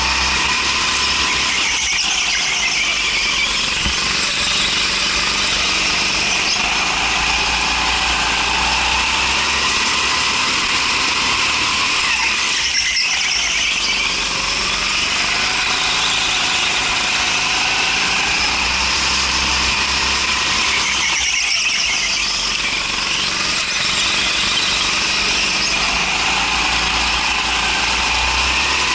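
Go-kart engine running at speed, heard on board, with tyre squeal from the smooth concrete floor through the corners. The sound dips briefly three times, as the throttle is lifted.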